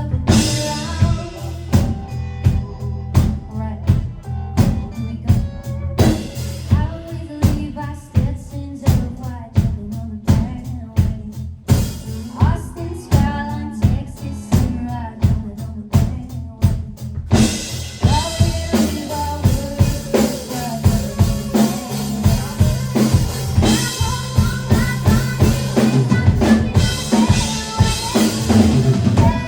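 Live rock band playing: a steady drum kit beat with snare hits over a bass line, the sound filling out with cymbals from about two-thirds in.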